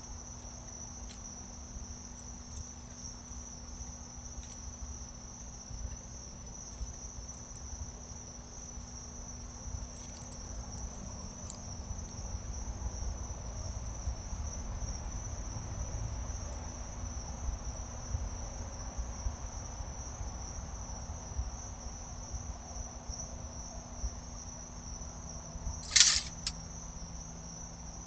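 Crickets chirping in an unbroken high-pitched trill, over a low rumbling background noise. One brief, louder sharp sound near the end.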